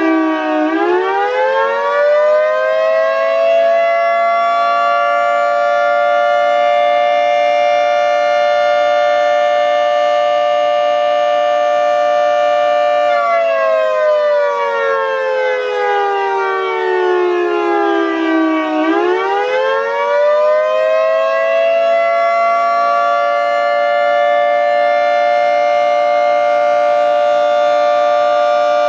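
Federal Signal 2T22 two-tone outdoor warning siren sounding a test, a dual-tone chord. It winds up to a steady pitch, holds it, winds down about 13 seconds in, then winds back up a little before 19 seconds and holds steady again.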